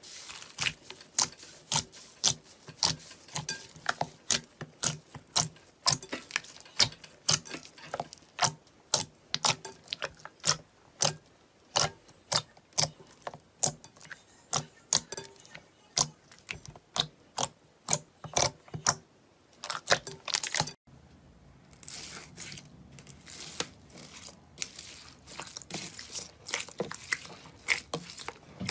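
Slime being pressed and squeezed by hand, making sharp sticky pops at about two to three a second. About two-thirds of the way through it changes to a quieter, finer crackling.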